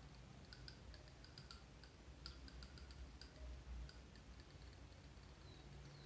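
Near silence: room tone with faint, irregular light clicks through the first four seconds.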